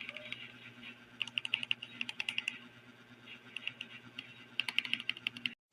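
Typing on a CPSTECH K86 hotswap mechanical keyboard: a quick run of key clicks about a second in, a lull, and a second run near the end.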